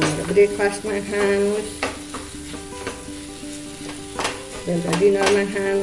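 Wooden spatula stirring and scraping thick buckwheat-flour puwa in a nonstick wok, knocking against the pan every second or so, with a light sizzle of ghee cooking. Held musical notes sound underneath.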